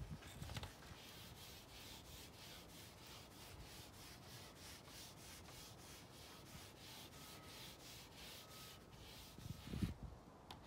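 Gloved hand scraping dirty, stripper-softened old finish off a teak tabletop in quick, even back-and-forth strokes, about two to three a second, with a rasping scrape on each stroke. A few louder knocks come near the end.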